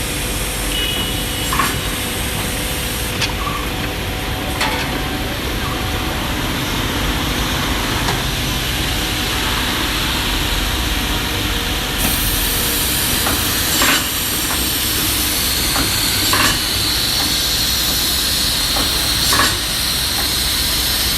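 Automatic woodworking cutting and drilling machine running: a steady hiss with a short sharp click or clunk every few seconds as it cycles.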